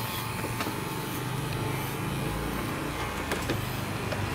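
Electric dog-grooming clippers buzzing steadily as they shave a dog's coat, two clippers running at once.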